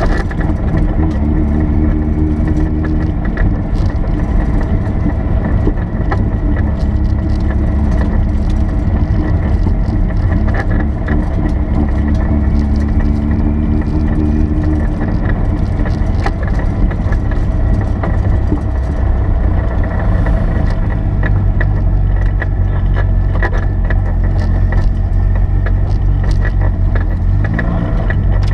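Porsche 930 Turbo's air-cooled flat-six running at low revs while the car rolls slowly, heard from inside the cabin. Its pitch rises and falls a little, with many small clicks and rattles over it.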